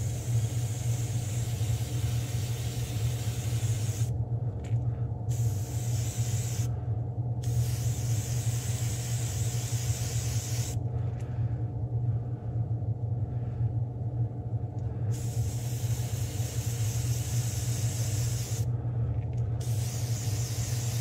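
Airbrush hissing in about five spurts of one to four seconds, stopping and starting as the trigger is let off, with a longer pause midway. A steady low motor hum runs underneath.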